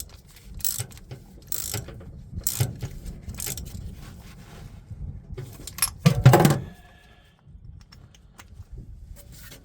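Metal clinks and rubbing scrapes from handling and scrubbing spark plugs and tools, in short strokes under a second apart, with a louder knock about six seconds in.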